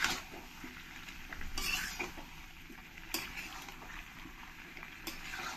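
A spatula stirring and turning pieces of boiled giant taro in thick masala in a pan, with a few scrapes and knocks against the pan over a faint sizzle.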